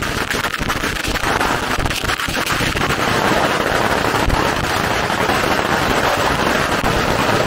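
Strings of firecrackers going off in a dense, continuous rapid-fire crackle, thickening after about two seconds.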